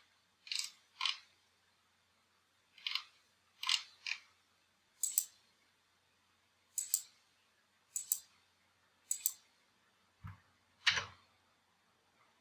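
Computer mouse clicking, about a dozen short sharp clicks at irregular intervals, some in quick pairs like double-clicks.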